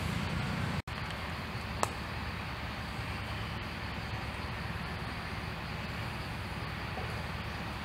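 Steady outdoor background noise with a low rumble, broken by a brief silent gap about a second in and a single sharp click near two seconds.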